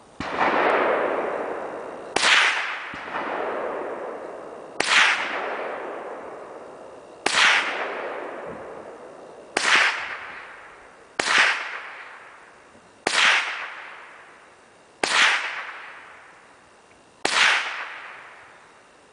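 A .22 rifle firing nine shots, roughly every two seconds. Each sharp crack is followed by a long fading echo.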